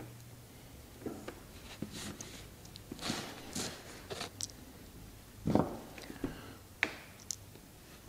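Small plastic and metal parts of a flashlight tail-cap switch being handled and fitted together by hand, giving faint scattered clicks and rustles, with one louder knock about five and a half seconds in.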